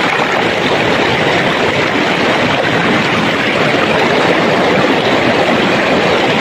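Shallow river water rushing steadily over and around stones.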